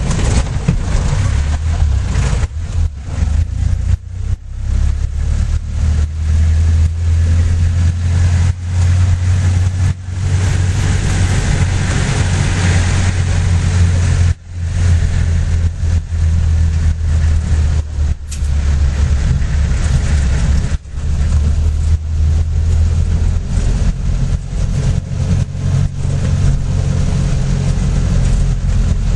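Vehicle engine heard from inside the cab while driving, a loud, steady deep drone with road noise. The sound drops out briefly twice, about halfway through and again a few seconds later.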